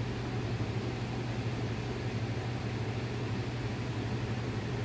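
Steady low machine hum with an even hiss behind it, unchanging throughout.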